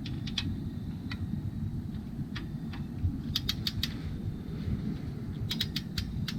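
Ratchet or torque wrench clicking as a bolt is turned down: a few single clicks, then two quick runs of about five clicks each. A steady low rumble runs underneath.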